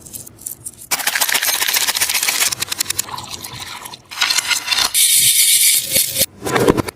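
A taba squishy, a tape-wrapped squishy ball, being squeezed by hand, giving crinkly, crackling tape sounds. The crackling starts about a second in and gets louder again for a couple of seconds near the end, with a lower squelch at the very end.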